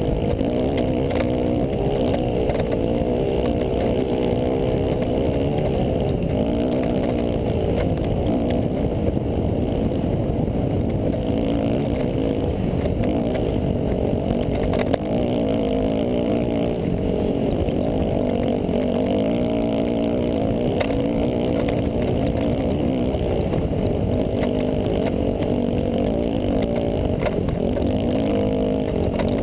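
Dirt bike engine running hard under way, its pitch rising and falling as the rider works the throttle over the sandy track.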